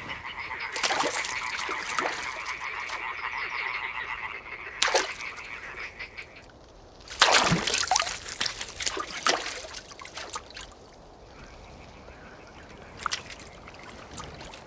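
Tree frogs calling in a steady, fast-pulsing chorus through the first six seconds or so, and more faintly near the end. Over it come splashes and rustling in wet pond-edge plants as frogs are grabbed by hand, the loudest about seven seconds in.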